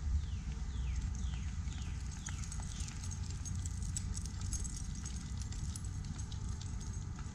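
Footsteps on a paved road over a steady low rumble. In the first three seconds a bird gives a run of about six short, falling whistled notes.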